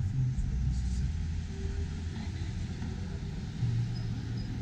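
Cars passing at low speed, a steady low engine hum with tyre noise; a louder hum from another car comes in about three and a half seconds in.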